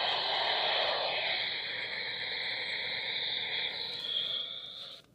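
Static hiss from a NOAA Weather Radio receiver: a steady rushing noise that thins after about a second and cuts off suddenly near the end.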